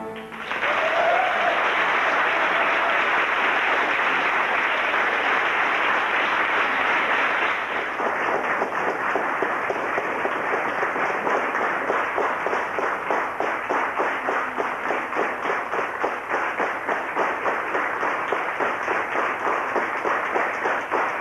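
Theatre audience applauding, a dense wash of clapping that after about eight seconds turns into rhythmic clapping in unison, about two to three claps a second.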